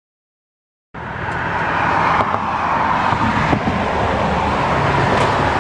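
Dead silence, then about a second in a motor vehicle's engine sound cuts in abruptly and runs steadily under a broad rushing noise.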